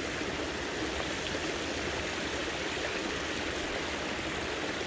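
Water spilling steadily over the concrete lip of a pond spillway.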